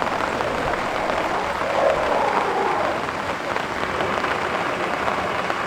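Heavy rain falling steadily, with a brief louder swell about two seconds in.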